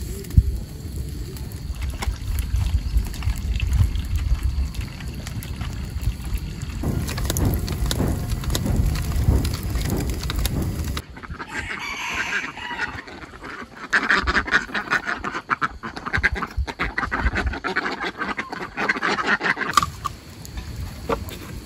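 A wood fire burning with a low rumble and scattered crackles. About halfway in the rumble drops away and rapid, chattering calls of farm fowl take over until near the end.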